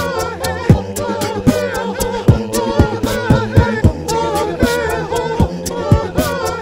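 A cappella beatbox loop from a Boss RC-202 loop station: a steady beatboxed drum pattern of kicks and sharp snare and hi-hat hits runs under layered, sustained sung vocal harmonies.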